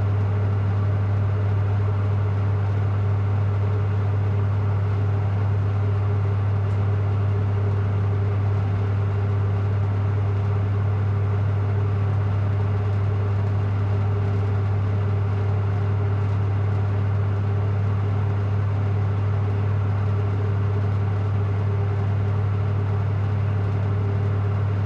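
Generator running with a steady, unchanging hum, strongest in a low tone, with a fainter higher tone above it.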